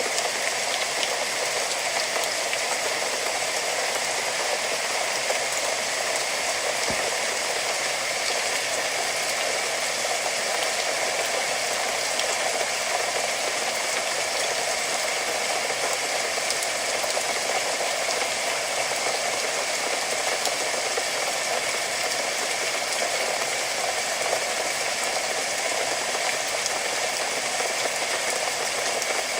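Steady rain falling, a dense, even hiss with little low rumble that holds constant throughout.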